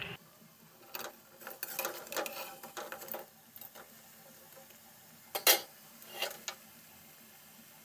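Metal slotted spoon scraping and clinking against a kadai while pakoras frying in oil are turned and lifted. A run of small clicks and scrapes fills the first three seconds, a sharp clink comes about five and a half seconds in, and two lighter ones follow.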